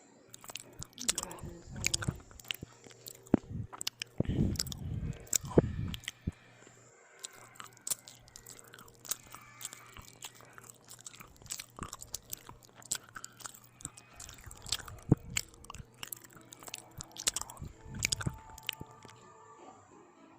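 Close-miked biting and chewing of bread with ham and tomato: many short, sharp mouth clicks and crunches, with a few louder low bites.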